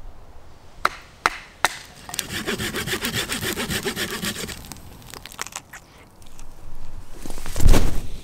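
Three sharp wooden knocks in quick succession, then a hand saw cutting through wood in fast, even rasping strokes for about two seconds. A few scattered clicks follow, and near the end there is a loud rushing swell.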